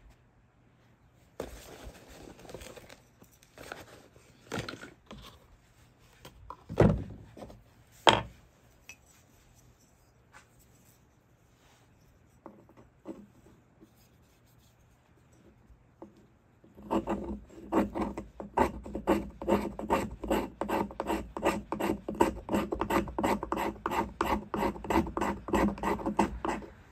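Knife blade scraping a stick of fatwood in quick, even strokes, about three a second, raising fine shavings. Before that, scattered handling rustles and two louder knocks about seven and eight seconds in.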